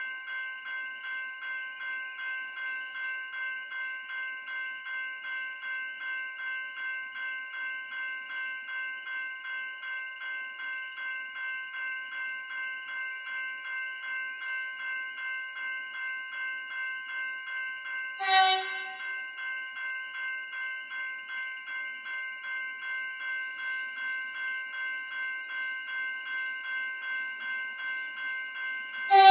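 Railway level-crossing warning bell ringing steadily, about two to three strokes a second, while the crossing is active. An approaching train sounds two short horn blasts, one about two-thirds of the way through and one at the very end.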